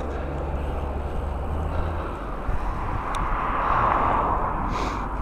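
Gale-force wind buffeting the microphone while cycling, a steady rushing roar with a deep rumble. A louder rushing swell rises and falls, peaking about four seconds in.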